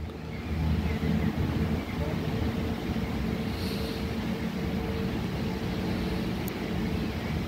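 Diesel railcar's engine running as a steady low drone with a faint held whine while the train pulls away.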